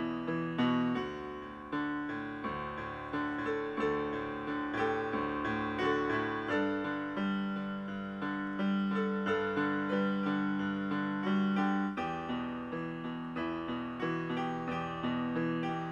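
Solo piano music, a piece of struck, sustained notes played several at a time.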